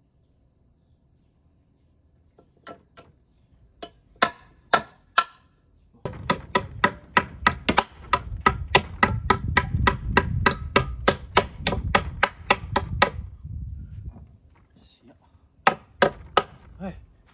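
A tool knocking sharply on wood. A few separate blows come first, then from about six seconds in a fast, even run of three to four blows a second for about seven seconds, then a few more blows near the end.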